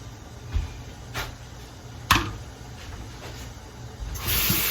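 A few light knocks of pots and utensils being handled, the sharpest about two seconds in, then a kitchen tap turned on near the end, water running steadily.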